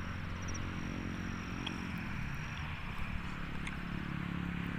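An engine running steadily, with a thin, steady high-pitched tone above it.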